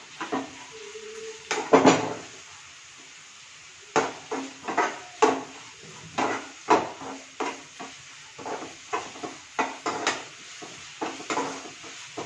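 Stainless-steel perforated skimmer knocking and scraping against a frying pan as sliced onions are stirred, in irregular strokes about once or twice a second, with a pause of about two seconds shortly after the start.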